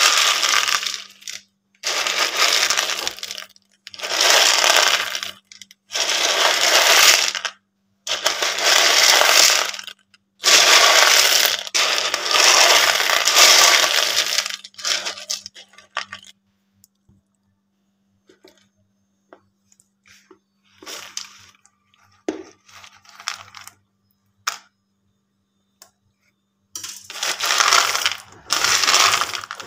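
Dried white chickpeas rattling and rustling against a plastic bowl as a hand sifts through them to pick them over before soaking, in bursts of a second or two with short pauses. A quieter stretch in the middle has only scattered faint clicks, and near the end dried red kidney beans rattle the same way under the hand.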